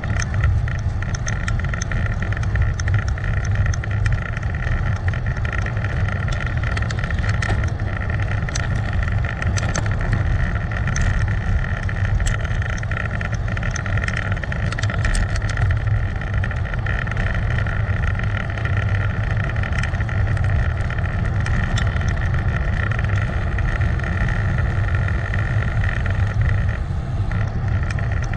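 Steady wind and road noise on a GoPro's microphone while riding: a constant heavy low rumble with a steady hum on top and scattered small ticks.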